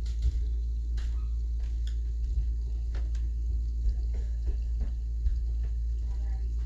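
Room noise: a steady low hum with a few faint, scattered clicks and taps.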